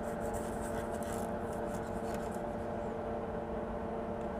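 Steady hum of a small motor with several steady tones, with faint light rubbing of gauze wiping flux off the circuit board pads in the first half.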